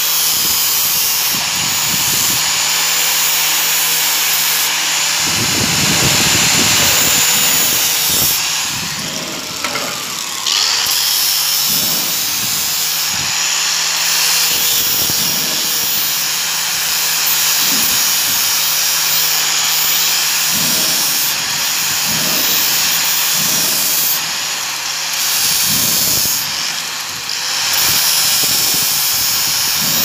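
Grinding wheel running with a metal buckle piece pressed against it to clean it up: a steady motor hum under a loud grinding hiss that drops away briefly several times.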